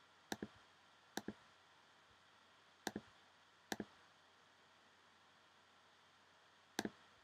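Computer mouse clicking while choosing items from drop-down menus: five quick double clicks, each a press and release, at uneven intervals over near silence.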